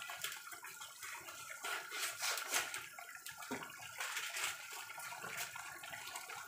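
Thick tomato-based goat caldereta simmering in a pot, bubbling and popping irregularly with a soft hiss.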